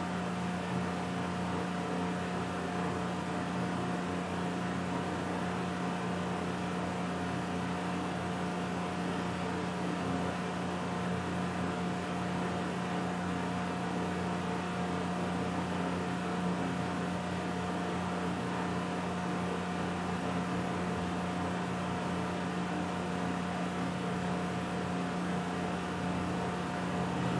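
Steady room tone: a constant low hum with a fainter higher tone over an even hiss, with no change throughout.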